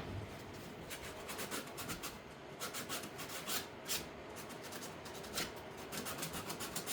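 Wooden boards being handled, with a run of light scrapes and small clicks of wood rubbing on wood.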